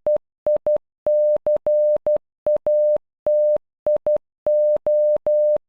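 Morse code played as beeps of one steady pitch, short dots and longer dashes with silent gaps between letters, spelling the latter part of "notification" (…F-I-C-A-T-I-O). Each beep switches on and off with a faint click.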